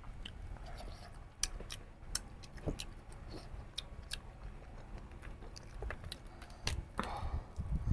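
Close-miked chewing of goat-head meat, with irregular sharp mouth clicks and smacks over a low background hum.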